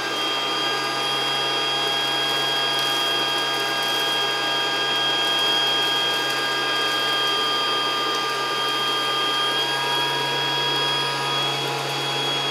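Casdon toy Dyson DC14 vacuum cleaner's small battery-powered suction motor running steadily with a high whine, just after being switched on, as its nozzle sucks up hole-punch paper dots.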